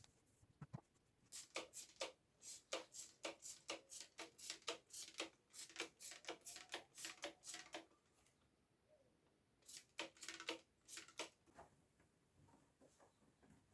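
Quiet, quick scrubbing strokes of a cleaning cloth or sponge on the fridge's plastic interior, about three strokes a second. They run for several seconds, stop, and then come back in a short second burst near the end.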